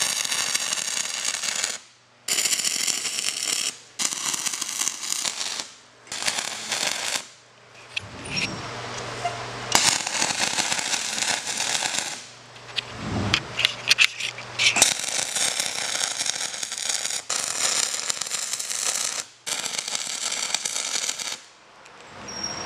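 MIG welding arc running hard-facing wire, crackling and sizzling as beads are laid on steel. It comes in about ten separate runs of one to three seconds, stopping and restarting briefly between them.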